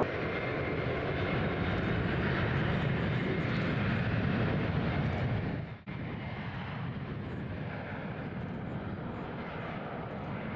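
Jet engines of an Embraer E190 regional jet running steadily at low ground power, a continuous rumble with a faint high whine. The sound breaks off briefly about six seconds in.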